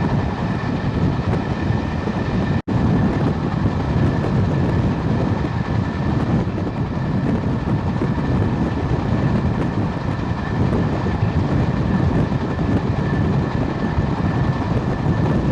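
A train running past, a steady rumble of wheels on the track with a thin steady whine above it. The sound breaks off for an instant about two and a half seconds in.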